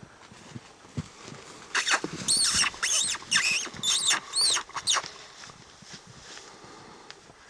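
Predator call sounding a prey distress call: a run of about seven high, arching squeals over some three seconds, starting about two seconds in.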